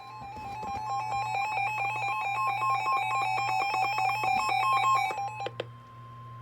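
Emergency alert tones from a NOAA Weather Radio severe thunderstorm warning. A steady warning tone sounds, with a rapid, rhythmically pulsing electronic alarm over it. The alarm grows louder, then cuts off abruptly with a few clicks about five and a half seconds in, leaving the steady tone alone. A faint low hum sits underneath.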